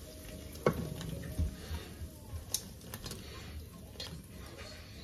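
Fried langostinos being tipped out of a wok into a glass baking dish: a knock as the pan is handled a little under a second in, then scattered light clicks and patters of the shells sliding onto the glass.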